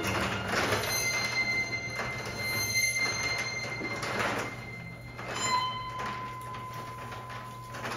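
Free improvisation on percussion and double bass: scraping and rubbing noises under held ringing tones, with a new lower tone coming in about five and a half seconds in.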